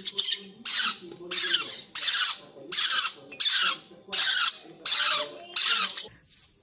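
A pet bird giving a run of harsh, screechy squawks in an even rhythm, about nine calls, one every two-thirds of a second, stopping shortly before the end.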